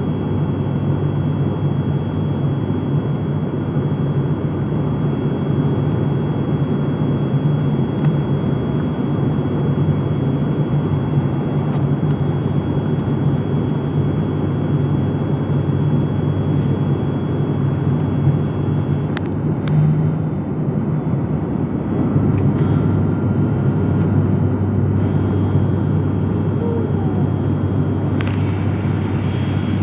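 Airliner cabin noise in flight: a steady rush of air over a low engine hum. About two-thirds of the way through, the hum steps to a lower pitch.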